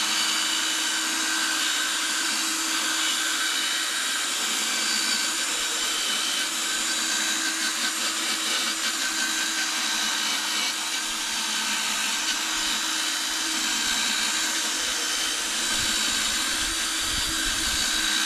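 Cordless drill running steadily at low speed, spinning an 800-grit sanding disc that wet-sands a plastic headlight lens. A steady motor whine with a grinding hiss from the disc on the wet plastic.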